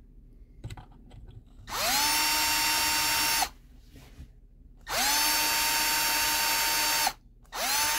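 Electric drill drilling the tuner holes in a guitar headstock: the motor spins up with a rising whine and then holds a steady pitch, in three short runs, the last one brief near the end.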